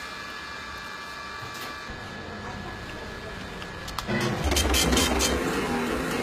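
Steady low hum, then about four seconds in a small receipt printer starts up and runs, printing a paper slip with a rapid buzzing chatter.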